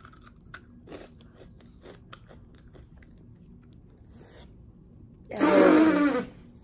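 Cheetos being crunched and chewed close to the microphone: a run of small crisp crunches. About five seconds in comes a short, loud wordless vocal sound lasting under a second.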